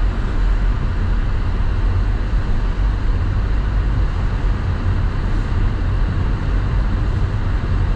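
Steady low rumble inside a moving car's cabin: engine and tyres on a wet road, with a constant hiss over it.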